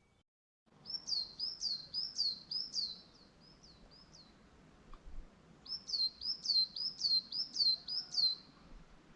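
A songbird singing two phrases of repeated high notes, each note sliding downward, about three notes a second. The first phrase starts about a second in and trails off; the second comes about halfway through.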